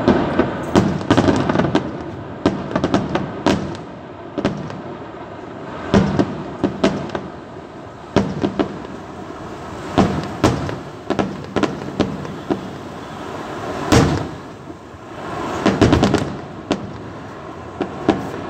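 Fireworks display: a running barrage of firecracker bangs and explosions, coming in irregular clusters of quick cracks, with the single loudest bang about 14 seconds in.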